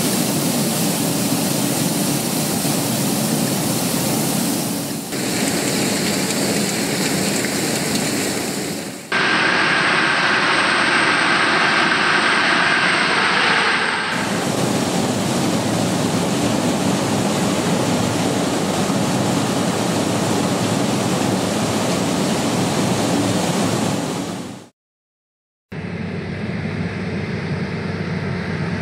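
Combine harvester running, a loud, dense, steady machine noise that changes abruptly several times as the shots cut, with about a second of silence near the end.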